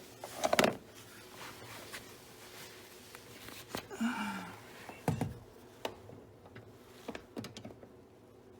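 Scattered metal clicks and knocks of hand tools against a Chevrolet Suburban's front door hinge as a new hinge spring is forced into place. The loudest knock comes about half a second in, and a short sound falling in pitch comes about four seconds in.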